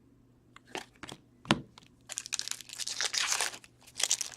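Foil wrapper of a hockey card pack being torn open and crinkled: a few sharp clicks first, then a stretch of crackly tearing and crinkling, with another burst near the end.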